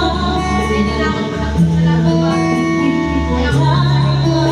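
Woman singing into a microphone, amplified through a PA speaker, over instrumental backing music with a steady bass line.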